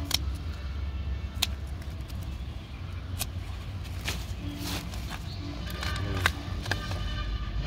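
Hand scissors snipping hollyhock leaf stalks: several short, sharp snips at irregular intervals. A steady low rumble runs underneath.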